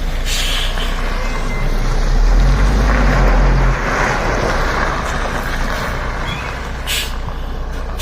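Heavy truck engine running with a low rumble, swelling louder for a couple of seconds about two seconds in and then easing back, with a sharp knock near the end.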